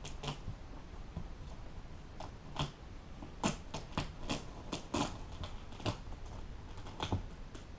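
Staples being pried out of a boat seat cushion's base with a hand staple puller: irregular sharp clicks and snaps, about fifteen of them, coming closer together in the second half.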